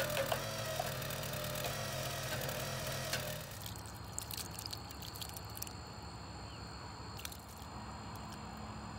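A gas-powered 22-ton log splitter's engine running steadily, with a few sharp knocks. It stops abruptly about three seconds in, leaving a quieter outdoor background with light clicks and taps as canned diced tomatoes are poured into a steel wok.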